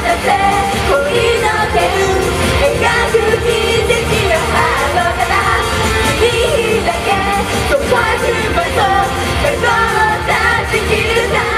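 Japanese idol-pop song performed live on stage: a group of women singing into microphones over a loud backing track.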